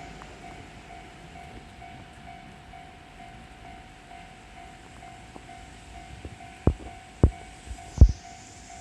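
Japanese level-crossing bell clanging in a steady, even rhythm as a JR Kyushu 813 series electric train passes; from about six and a half seconds in, a few loud thumps of its wheels striking rail joints.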